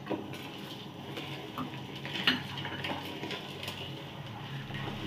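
A spatula stirring lumps of rock sugar into agar-agar liquid in an aluminium wok, with a few light knocks and scrapes against the pan, one a little louder about two seconds in.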